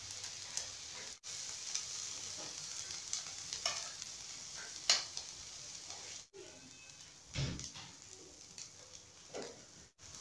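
Steady sizzling of chicken shawarma frying in a pan, with light clicks and taps of metal tongs on food and a soft thump past the middle.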